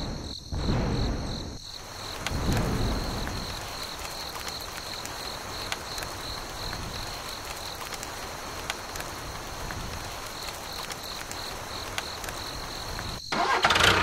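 Rain falling steadily on a miniature sand diorama, an even hiss that follows a louder low rumble in the first second and a half and cuts off near the end. A high, pulsing insect-like trill runs underneath.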